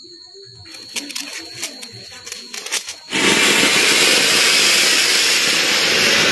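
Ground fountain firework (anar) lit and spraying sparks. After a few faint crackles it catches about three seconds in with a sudden loud, steady hiss that begins to fade near the end.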